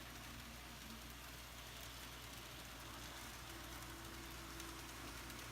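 Faint steady hum of a small N scale model tram motor running slowly on the track, with a thin whine that comes and goes.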